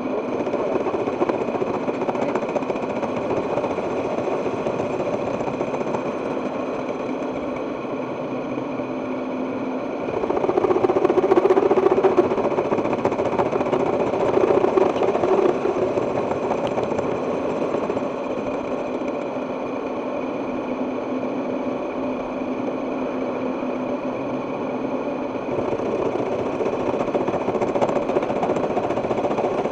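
Milling machine running with a steady hum, growing louder for several seconds about ten seconds in.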